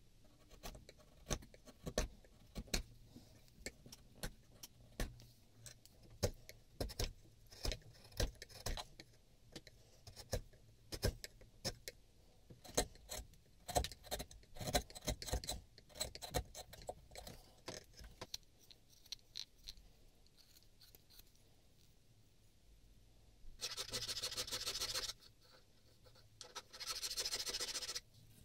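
Bench chisel paring a boxwood plane body by hand: a long run of short, crisp cutting strokes and small knocks. Near the end, two longer strokes of a file on the wood, each lasting over a second.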